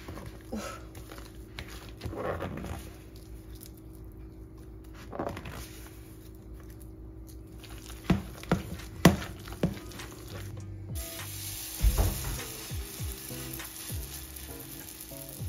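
Hands squeezing and kneading grated potato mixed with its own potato starch in a plastic bowl, making squeaky, squelching crunches. About eleven seconds in, mini potato pancake batter starts sizzling in hot oil in a frying pan.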